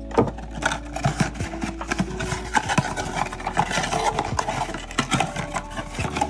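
Dense, irregular crinkling, rustling and clicking of a blind box's packaging being handled and opened by hand, over faint background music.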